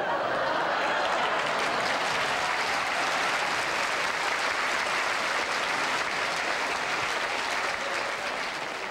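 Theatre audience applauding steadily, tapering off slightly near the end.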